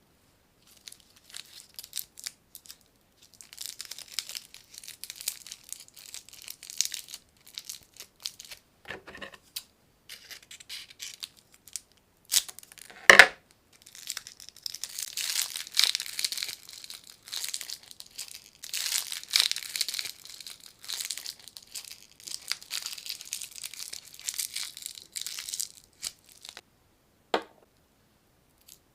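Plastic lollipop wrappers being crinkled, rustled and torn open by hand in repeated bursts. One sharp crack about halfway through is the loudest sound.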